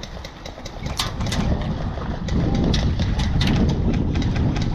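Loud low rumble of wind and movement on a body-worn camera's microphone, swelling about two seconds in, with scattered sharp clicks and cracks throughout.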